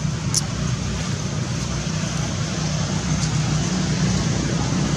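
Steady low outdoor rumble with an even hiss over it, and one short sharp click about half a second in.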